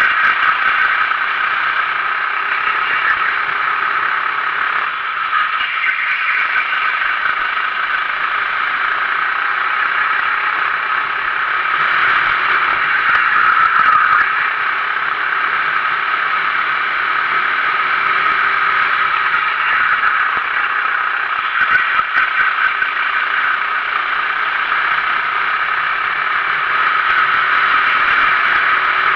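Sodi RT8 kart's 390 cc engine running hard at racing speed, heard from a camera mounted on the kart with rattle and wind noise, the level swelling and easing a little through the corners.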